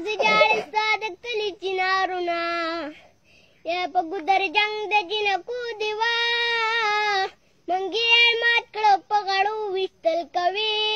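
A young boy singing unaccompanied in Pashto in a high voice, long phrases with held, wavering notes. He breaks for breath about three seconds in and again about seven seconds in.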